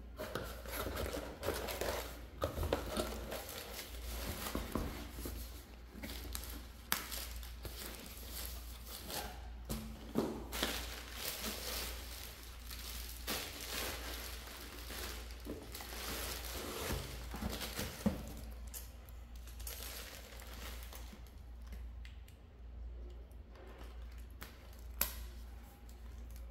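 Plastic packaging crinkling and rustling as air-cushion bubble wrap and plastic wrapping are handled and pulled from a cardboard box, with a few sharp clicks and knocks among it. The rustling thins out over the last few seconds.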